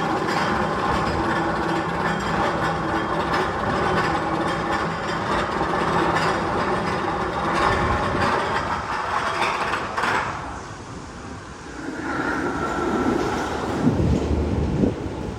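Mechanical clattering and rattling like a rail train running, with a steady hum under it, coming from the Magnum XL 200 tunnel. It dies away about ten seconds in, and wind rumbles on the microphone near the end.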